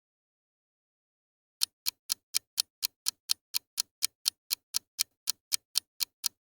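Countdown timer ticking like a clock, about four sharp ticks a second, starting after a second and a half of silence.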